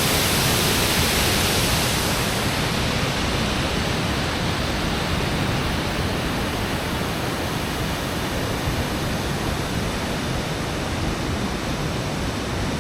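Steady rushing hiss of open, unfrozen river water flowing below a bridge, its high end easing a little after about two seconds.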